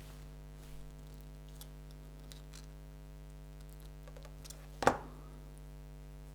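A few faint metallic clicks and one sharper click about five seconds in, over a steady electrical hum: pliers bending the metal strain-relief clamp of a 6-pin DIN plug.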